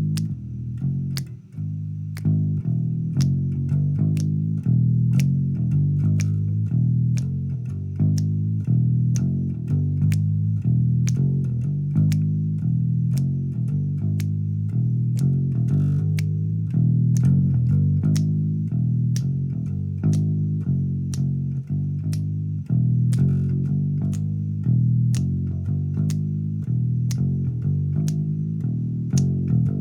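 Instrumental rock music: a bass guitar plays a busy riff of low notes, with a sharp percussive tick about twice a second.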